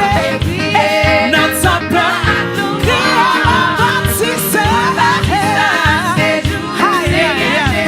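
Gospel praise song: singing over a band with a steady beat.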